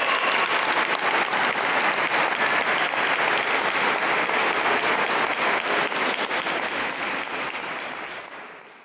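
Audience applauding steadily, dense clapping that fades out near the end.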